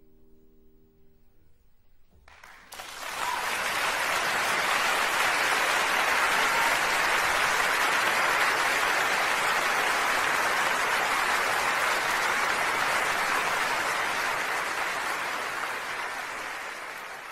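Faint tail of piano music dying away, then an audience applauding from about two seconds in, steady and tapering off near the end.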